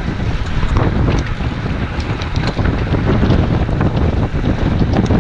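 Wind buffeting a GoPro's microphone on a road bike ridden at about 24 mph: a loud, uneven rumble with scattered faint clicks.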